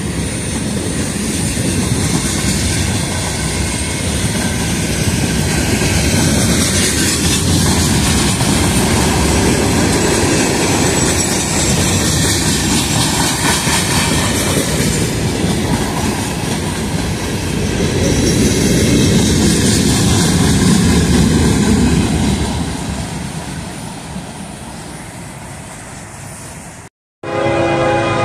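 Open-top hopper cars of a CSX rock train rolling steadily past, a continuous clattering rumble of wheels on rails that fades away over the last few seconds. After a sudden cut, a locomotive horn starts to sound right at the end.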